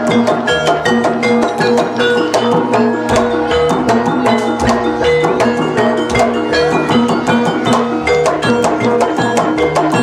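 Javanese jaranan dance music: a percussion ensemble playing a fast, steady rhythm of sharp drum and wood-like strikes over ringing gong and metallophone notes.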